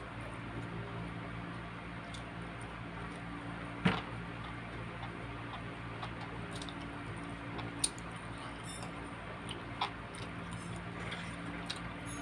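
A person eating chicken and rice by hand: soft chewing and mouth sounds with a few sharp clicks, the loudest about four seconds in, over a steady low hum.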